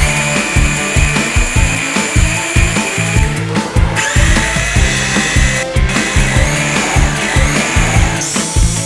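INGCO RGH9028-2 800 W rotary hammer motor whining while drilling, in a few short stretches, each at its own pitch, some rising as it spins up. Background music with a steady beat runs under it and is the louder part.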